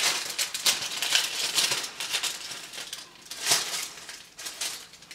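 Tissue paper crinkling and tearing as a small wrapped sample is pulled out of it: a quick run of dry rustles, with one louder one about three and a half seconds in, thinning out near the end.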